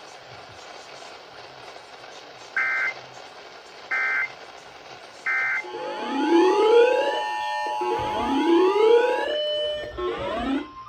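Radio hiss, then three short bursts of Emergency Alert System digital data tones about a second and a half apart: the SAME end-of-message code that closes the alert. After them a louder rising whooping alarm tone sweeps up and repeats about every two seconds.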